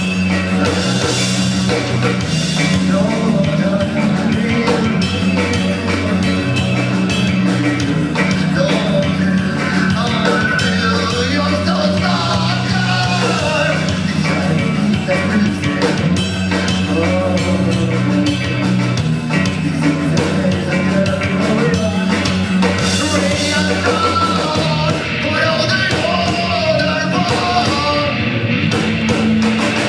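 Live rock band playing loud: distorted guitars, bass and drum kit, with singing.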